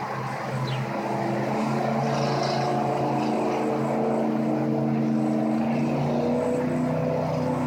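A boat's engine running with a steady droning hum, its pitch drifting slightly upward near the end.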